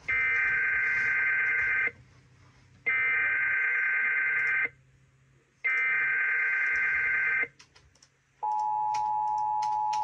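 Emergency Alert System SAME header data bursts: three harsh digital squawks, each about two seconds long with short gaps between them. About 8.5 seconds in, the steady two-tone EAS attention signal begins.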